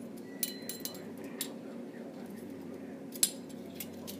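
A ring of metal measuring spoons jangling as they are handled, giving a few separate light clinks, the loudest about three seconds in.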